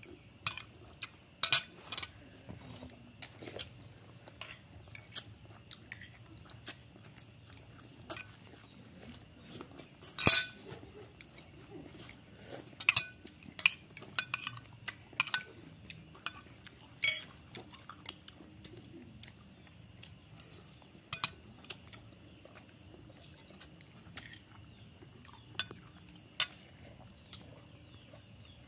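A cat eating cooked shrimp from a plate: irregular sharp clicks and crunches of chewing shell and of the plate clinking as it eats, the loudest about ten seconds in.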